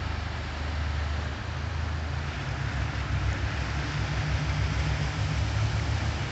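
Low, steady drone of a passing flybridge sport-fishing yacht's inboard engines, with a throbbing beat that sets in after about a second and a half, over a steady hiss.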